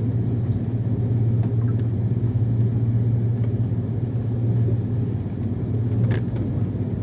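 Steady low drone inside an Airbus A330 cabin after landing, with a hum under a constant rush of noise. A few faint clicks, the clearest about six seconds in.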